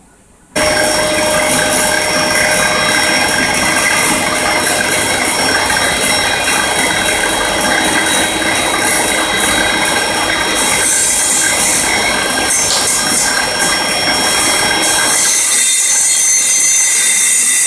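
Homemade table circular saw switched on about half a second in and running steadily with a steady whine, its dust-extraction vacuum drawing through the suction hood, while a board is pushed through the blade.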